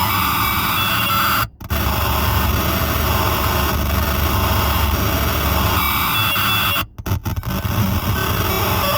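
Harsh electronic noise from an Error Instruments Data Synth: a dense, static-like wash with a deep low hum, cutting out abruptly about a second and a half in and again, in stutters, near the seventh second.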